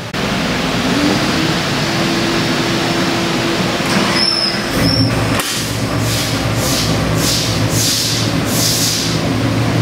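LS3 416 cubic-inch stroker V8 running on an engine dyno: a steady low engine note under a loud rushing noise. About halfway in the low engine note grows stronger and a pulsing hiss sets in, about twice a second.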